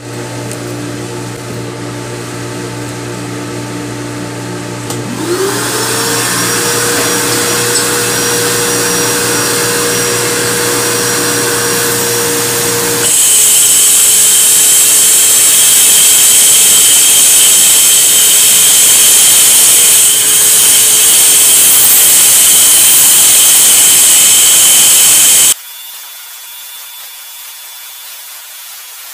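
A shop vacuum runs with a steady hum. About five seconds in, an INGCO 1500-watt electric wall chaser's motor spins up to a steady whine. About thirteen seconds in, it turns louder and harsher as its blades cut into the concrete floor, then it cuts off abruptly, leaving a quieter hiss.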